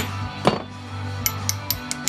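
Small metal parts clinking and being tapped: a louder knock about half a second in, then four or five short, sharp metallic clicks.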